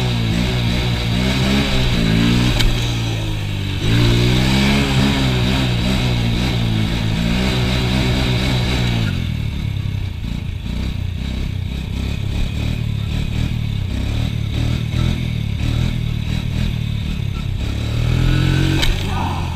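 Honda TRX90 ATV's small single-cylinder four-stroke engine accelerating hard through the gears. Its pitch climbs, drops at a shift a few seconds in, and climbs again. About halfway through it falls back to a low, uneven running as the throttle closes, then revs up again near the end.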